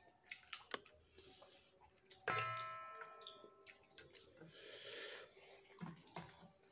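A metal dinner plate clinks once about two seconds in and rings out for about a second. Soft clicks come before it, and a soft rustling follows as rice is mixed by hand.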